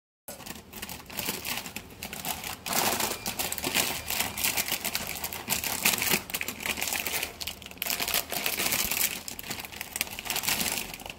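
Plastic instant-ramen packets crinkling and crackling as hands open them and rummage inside, in dense irregular crackles that start a moment in.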